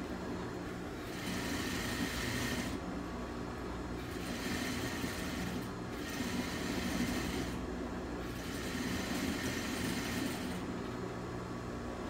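Industrial sewing machine stitching in three runs of about two seconds each, over a steady low hum.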